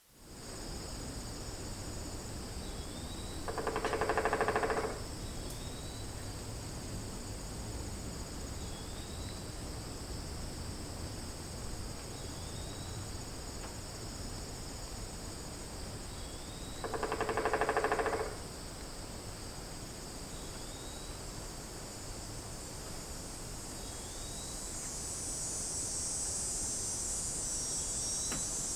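Steady high-pitched chorus of crickets and other insects, with a faint short rising chirp repeating every few seconds. Twice, a louder rattling, rapidly pulsed call lasting about a second and a half stands out over the chorus.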